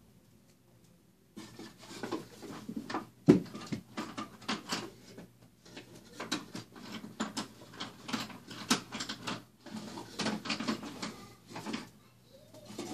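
Handling noise: rapid, irregular rustling and clicking of objects being moved about and rummaged through. It starts about a second and a half in and runs on unevenly, with one sharper knock a couple of seconds later.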